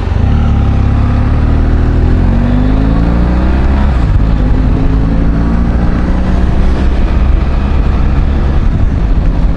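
Motorcycle engine pulling away and accelerating, its pitch rising for a couple of seconds, dropping at a gear change about four seconds in, then running steady at cruising speed with wind and road noise.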